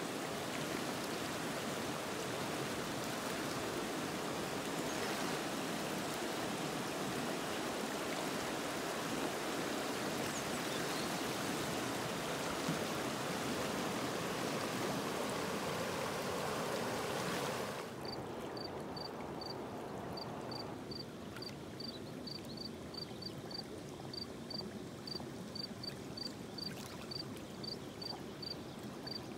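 A steady rushing noise that cuts off abruptly about 18 seconds in. After it, an insect chirps in a regular series of short, high-pitched chirps, about three a second.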